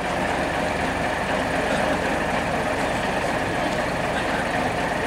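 Diesel engine of a heritage coach idling steadily, with an even low throb.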